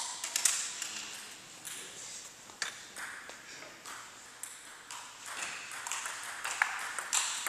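Table tennis ball bouncing: a quick run of light clicks at the start, then single sharp clicks every second or two, with ringing from the hall.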